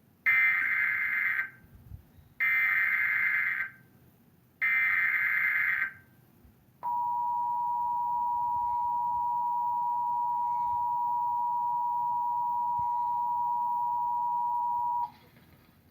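Emergency Alert System broadcast alert: three bursts of SAME digital header data, each about a second long, then the EAS two-tone attention signal, a steady double tone held for about eight seconds before cutting off sharply.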